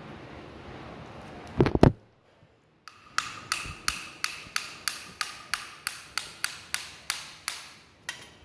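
Steel hammer driving a ball bearing into a brush cutter's gear head housing. There are a few heavy knocks first, then a steady run of about fifteen ringing metallic taps, roughly three a second.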